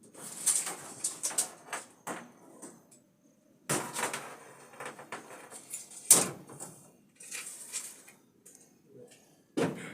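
Handling noises: a string of knocks with scraping and rustling between them, the sharpest knocks about four, six and nine and a half seconds in.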